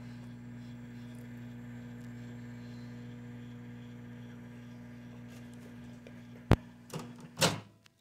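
Microwave oven running with a steady electrical hum. Near the end come a few sharp clicks, the loudest as the door latch is released and the door opened, and the hum cuts off at once.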